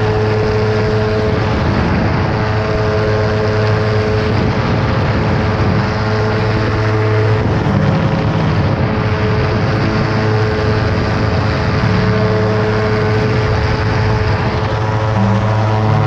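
Weight-shift microlight trike's engine and propeller running at takeoff power: a loud, steady drone through the ground roll and climb-out.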